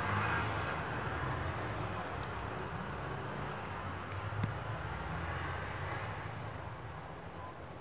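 Steady low rumble and hiss of background noise, slowly fading, with one faint click about four and a half seconds in.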